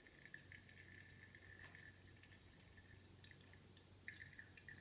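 Near silence: coffee dripping faintly and irregularly from the paper filter into the Chemex carafe as the last water drains through, over a low steady hum. A few slightly louder crackles about four seconds in, as the wet paper filter is taken hold of.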